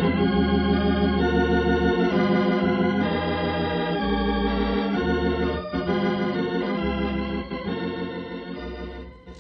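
Organ music bridge between scenes: a run of sustained chords over a moving bass line, fading out near the end.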